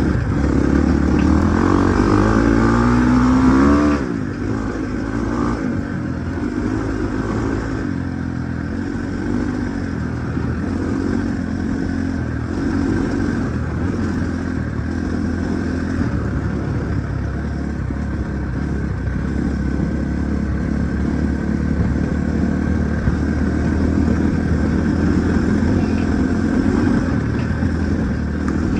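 Husqvarna 450 dirt bike's single-cylinder four-stroke engine revving, its pitch climbing for the first four seconds, then running on at lower, gently varying engine speed.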